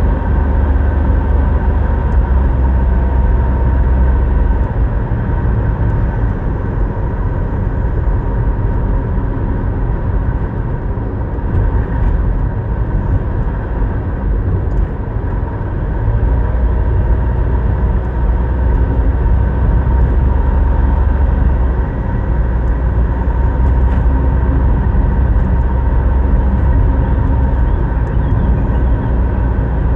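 Car driving steadily: a continuous deep rumble of engine and tyre road noise, with a faint steady whine above it.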